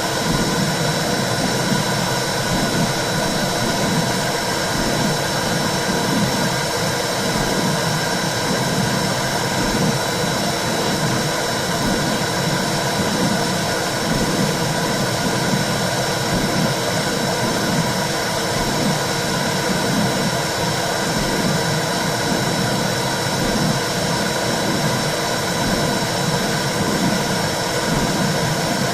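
Womb sound made for soothing a baby: a steady rushing noise with a low whooshing pulse that repeats steadily, like blood flow and a heartbeat heard from inside the uterus.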